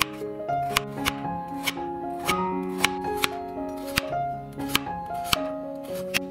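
Stainless chef's knife slicing a carrot into rounds on a bamboo cutting board: a crisp knock against the board with each cut, about two a second. Background music plays underneath.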